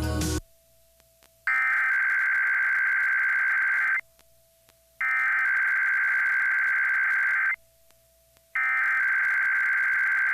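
Emergency Alert System SAME header: three identical bursts of shrill digital data tones, each about two and a half seconds long with about a second's pause between. They are the coded header that opens an EAS Required Weekly Test on the radio broadcast.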